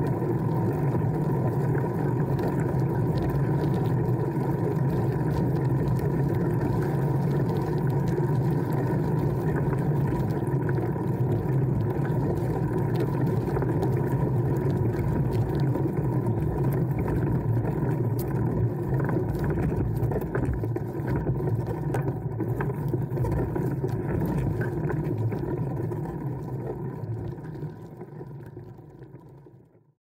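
Time ADHX gravel bike ridden on a dirt and gravel trail, heard from a camera mounted on the bike: a steady rumble of wind and tyres rolling over gravel, with scattered small clicks. It fades out over the last few seconds.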